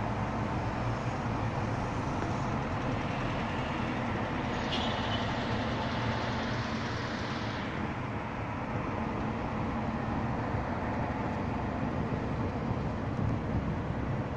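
Steady road traffic noise from cars on the road, with one passing vehicle's tyre hiss swelling briefly near the middle.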